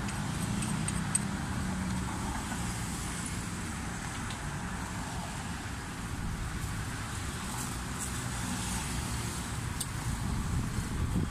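Steady low rumble of road traffic and vehicle engines, with a few faint clicks as a spoon and wooden pestle work papaya salad in a clay mortar.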